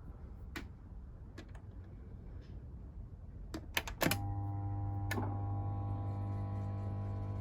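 A few scattered clicks, then about four seconds in a louder click and a steady low electrical hum starts. This is the Beko DCU 7230 condenser tumble dryer's motor buzzing without turning, the funny noise of a motor whose capacitor has failed.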